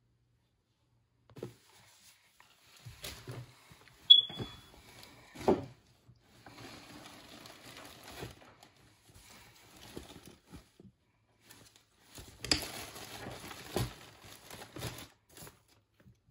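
A cloth garment being handled and unfolded on a desk: bursts of fabric rustling and light handling knocks. There is one brief high squeak about four seconds in.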